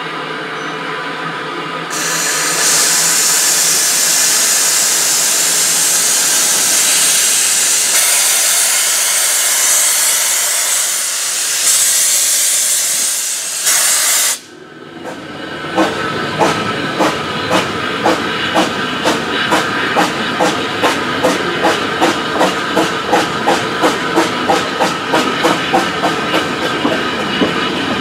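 Steam hissing loudly from the replica Baldwin 2-4-2 tank locomotive Lyn, blown out low beside the track, for about twelve seconds and then stopping abruptly. The train then moves off with a regular clicking beat that gradually speeds up.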